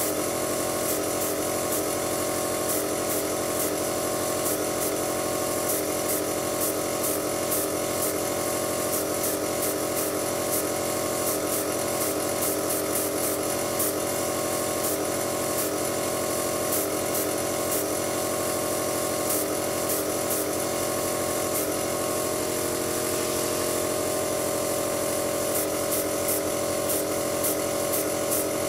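Small airbrush compressor running with a steady motor hum, with irregular faint ticks, as a Badger 200 siphon-feed airbrush sprays paint.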